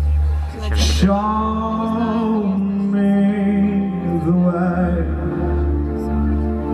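Man singing long, wavering held notes into a microphone over a steady pulsing bass backing. A short hiss comes just before the first note, about a second in.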